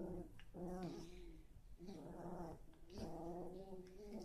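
Small dogs play-fighting, growling in about four drawn-out, wavering growls with short breaks between them.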